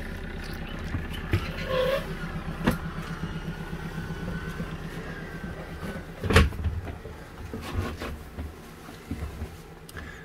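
Small marine diesel engine idling, a steady low pulsing drone that fades away near the end. A single heavy thud about six seconds in, like a footstep on wooden steps.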